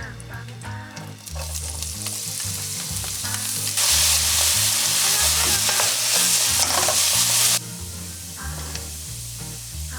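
Ingredients for fried rice sizzling in hot oil in a frying pan as they are stirred, with faint scraping from the spatula. The sizzle swells sharply about four seconds in and cuts off suddenly a few seconds later.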